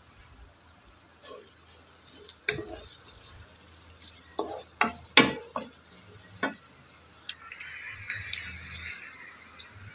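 Black plastic spatula stirring sliced shallots, garlic, ginger and lemongrass in a nonstick wok. It knocks and scrapes against the pan about six times through the middle. A soft frying sizzle rises near the end.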